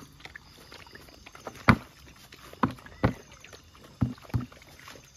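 Hollow thumps of an upturned plastic bucket being knocked to empty out dog food: five sharp knocks spread over a few seconds, the loudest about a second and a half in.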